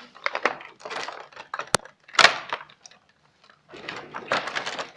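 Plastic baby feeding items and their packaging being handled: scattered clicks, knocks and rustling, with the loudest knock about two seconds in and a denser stretch of rustling near the end.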